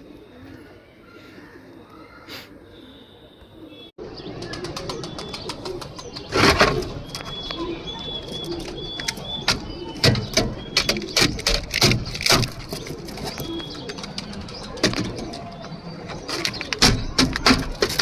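Domestic pigeons cooing, with many sharp clatters and knocks mixed in. The sound gets louder after a cut about four seconds in.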